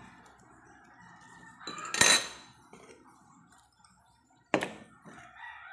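Stemmed drinking glass clinking: one loud ringing clink about two seconds in, then a shorter knock about two and a half seconds later.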